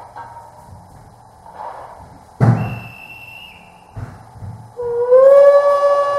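Gauge 1 model BR 82 steam locomotive standing with soft steam puffs, then a sudden loud hiss of steam released at the cylinders about two seconds in. About five seconds in it gives a deep steam whistle blast that bends up slightly and then holds steady.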